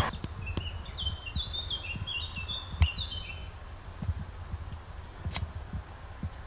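A songbird sings one phrase of quick, short whistled notes lasting about three seconds. Two sharp clicks come near the middle and a couple of seconds later, over faint low thumps.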